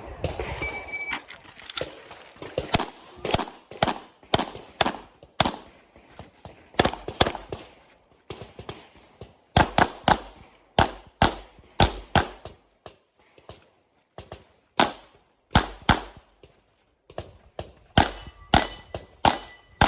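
Pistol shots fired in rapid pairs and short strings, some thirty-odd in all, with brief pauses between strings: a competitor shooting a practical-shooting (IPSC) handgun stage.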